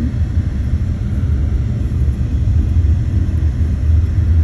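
Steady low rumble of a car driving on a snowy road, heard from inside the cabin.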